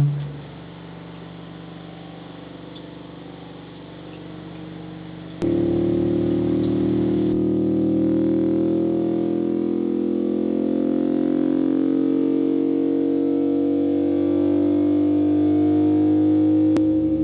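Low, distorted electronic tones with many harmonics played through a bass speaker. They hold steady for about five seconds, then jump abruptly to a louder, fuller chord whose tones slowly glide upward.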